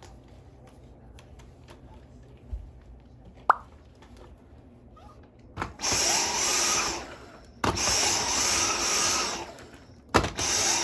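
Dyson V10 cordless cyclone vacuum switched on in three short bursts of one to two seconds, its motor whining up to speed each time, after a few handling clicks. This is the vacuum whose owner says it has no suction and picks up no dirt.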